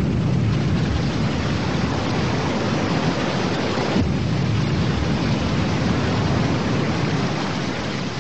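Loud, steady rumbling noise from a cartoon sound effect, with a short break about four seconds in.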